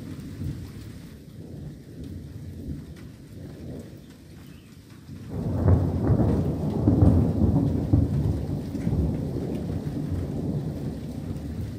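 Thunder: a low, distant rumble, then a much louder roll that breaks in about five seconds in and rumbles on, slowly dying away.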